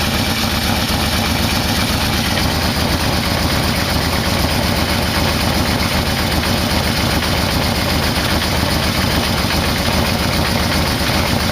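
Yamaha VMax V4 engine idling steadily while its carburetors are being synchronized; the carbs are out of sync.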